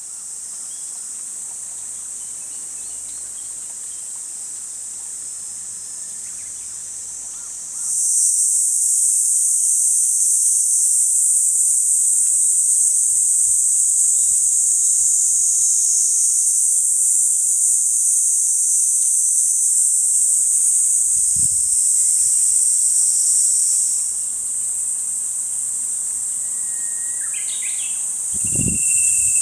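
Steady high-pitched chorus of insects, louder from about eight seconds in and a little quieter again from about twenty-four seconds. A bird chirps a few times near the end, and there are a few brief low thumps.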